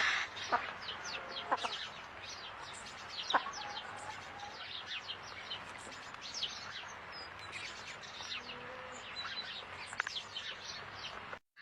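Many birds chirping together, a dense run of short, overlapping, high downward-slurred chirps over a steady hiss, cut off abruptly near the end.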